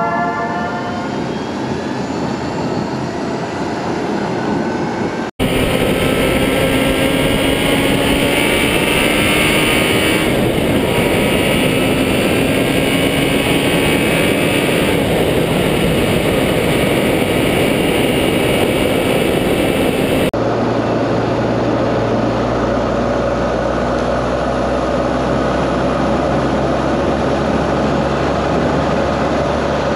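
A vehicle driving at speed: steady rushing road and wind noise with the engine running underneath, its pitch slowly rising as it accelerates. The sound cuts abruptly about five seconds in and again about twenty seconds in, each time changing character, the last part carrying a stronger low drone.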